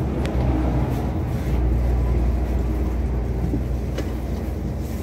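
Outdoor street ambience: a steady low rumble that swells a little in the middle, with a couple of faint clicks.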